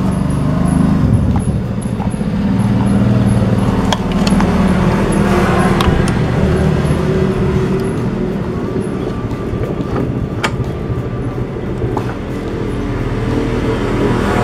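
A motor engine running steadily in the background, with a few sharp metal clicks from hands working the cable and brake arm on the scooter's front hub.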